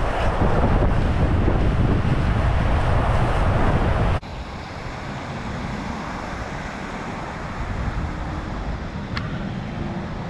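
Wind buffeting an action camera's microphone over rushing surf. It cuts off suddenly about four seconds in to a quieter wash of small waves on the shore, still with some wind on the microphone.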